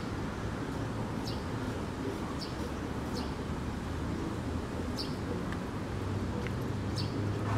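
Steady low rumble of city traffic, with short high chirps of a small bird every second or two.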